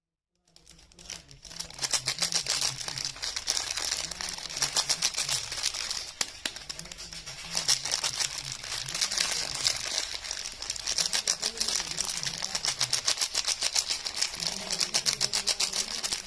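Soap packaging crinkling and rustling as the bars are unwrapped: a dense run of fast crackles that starts about half a second in and keeps going.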